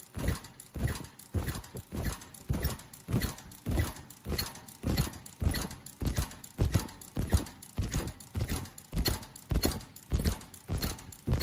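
Automatic inner-ear-loop flat mask welding machine running in production, clacking in an even rhythm of about two strokes a second as it welds, cuts and puts out masks.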